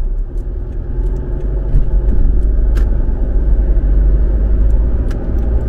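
Steady low rumble of road and engine noise inside a moving car's cabin, getting a little louder about two seconds in, with a few faint clicks.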